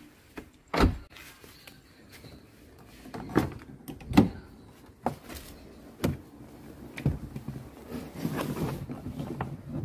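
Nissan Almera sedan doors being handled: a series of sharp clunks about a second apart, the loudest about a second in, then a rustle near the end.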